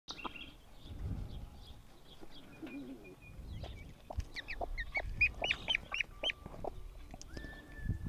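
Newly hatching muscovy duckling peeping: faint high chirps at first, then a quick run of short, loud peeps in the middle, over low handling rumble.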